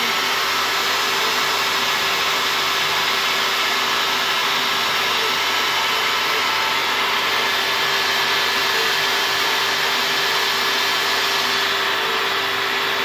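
CNC router spindle running steadily as its bit carves calligraphy into a board, with the dust-extraction vacuum running alongside: a constant hiss and whine.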